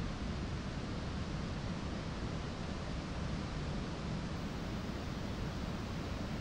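Single-engine light aircraft's piston engine idling while parked, with its propeller turning, heard as a steady, even low rumble with a hiss of airflow over it.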